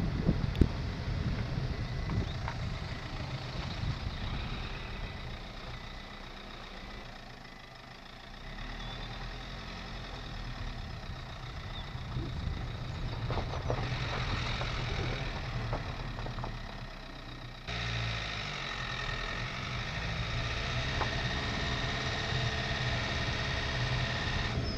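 Dacia Duster dCi 110 diesel on the move, heard from inside the car: a steady low engine and tyre rumble on a rough lane. The sound dips a little about a third of the way in and jumps suddenly about two-thirds of the way through.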